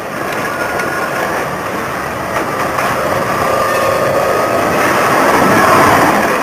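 Electric street tram approaching and passing close by on its rails, its running noise swelling and peaking near the end, with a faint steady whine over the rumble.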